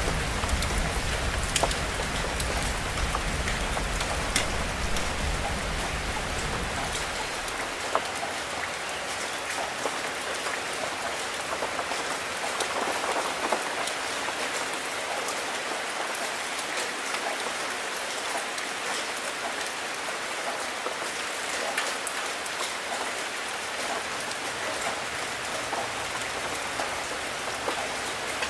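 Steady rain falling, with individual drops ticking close by. A low rumble sits underneath for the first seven seconds or so, then fades out.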